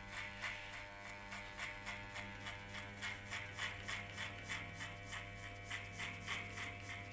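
Wahl electric hair clipper fitted with a guard comb, running with a steady hum and buzz. It is cutting short hair on the side of the head, the sound swelling in quick, regular strokes several times a second.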